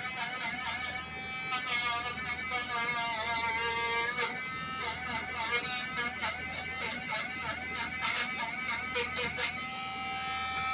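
Background song with a singing voice and a steady beat. Under it an electric grooming clipper buzzes steadily, clearest near the end.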